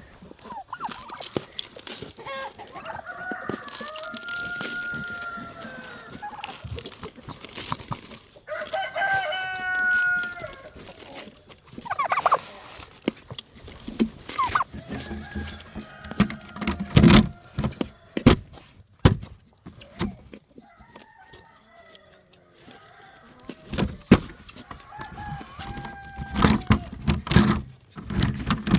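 Roosters crowing, two long crows clearest in the first ten seconds and fainter ones later, among chicken clucking and scattered knocks.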